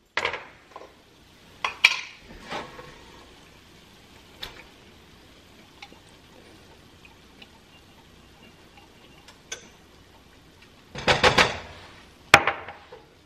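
Scattered clinks and knocks of a utensil against a glass mason jar and a ceramic-coated pan as caramelized onions are scooped into ground pork. A quick run of clatters comes near the end, followed by one sharp click.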